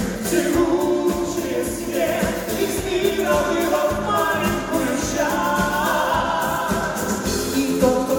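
Song with sung voices held on long notes over instrumental backing.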